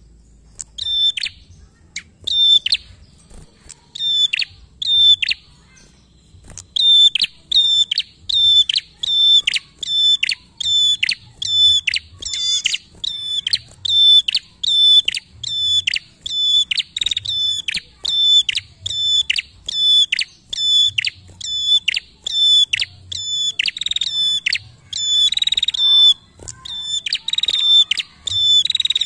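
Caged prenjak singing without pause: a long run of sharp, repeated calls, each sweeping quickly downward. The calls are spaced out for the first few seconds, then come steadily at about one and a half a second.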